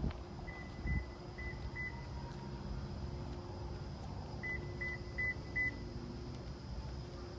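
Supercharged S65 V8 of a BMW E92 M3 idling steadily through its Innotech Performance exhaust, a low, even rumble. Two sets of four short high beeps sound over it, one near the start and one about halfway through.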